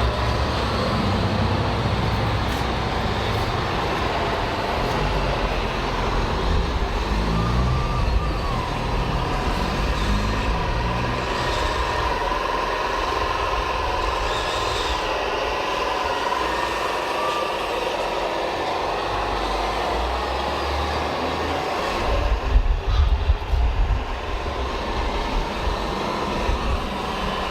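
Radio-controlled model trucks running, their sound modules playing diesel truck engine noise with a steady high whine and a few rising revs. Near the end comes a few seconds of louder low thumping.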